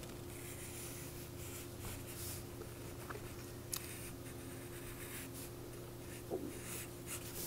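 Wooden pencil sketching lightly on paper: faint, scratchy strokes over a steady low hum.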